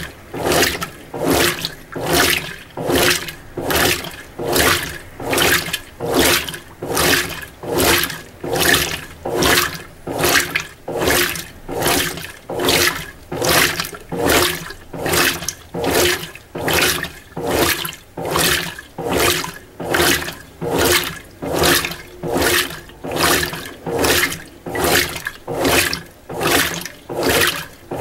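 Mueller Energy 8 kg top-load washing machine agitating a low-level load of whites: the agitator swings back and forth, sloshing the water and clothes in an even surge about once a second.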